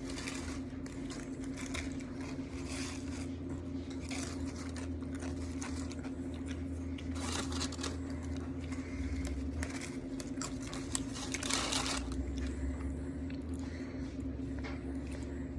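Irregular rustling, crunching and scraping noises close to the microphone, loudest about halfway through and again about three-quarters of the way through, over a steady low hum.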